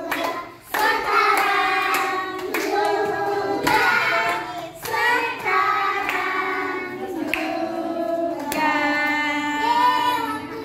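Group of young children singing a song together, with hand clapping along.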